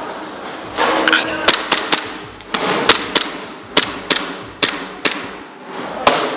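Airsoft pistol firing: about a dozen sharp shots at irregular intervals, some in quick pairs and runs, over a faint rustling background.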